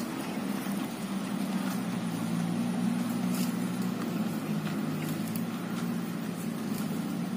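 A steady, low engine drone, with a few faint clicks over it.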